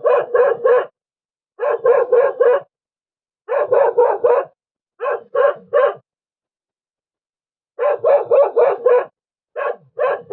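A dog barking in quick runs of three to five barks, about four a second, with short pauses between the runs and a longer pause a little past halfway. It is alarm barking at a leopard prowling close by at night.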